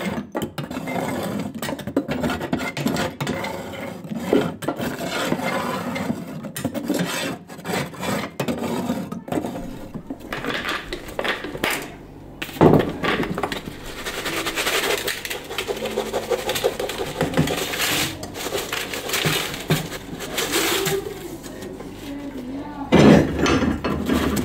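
Scraping and rubbing with irregular knocks and clinks from hand work on a kitchen wood stove that is being refitted with new fire clay and iron parts. There is a sharper knock about halfway through and another near the end.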